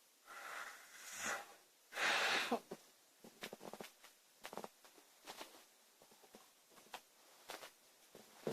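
A sleeping woman breathing noisily: two soft breaths, then a louder snorting breath about two seconds in. After it comes a run of small irregular clicks.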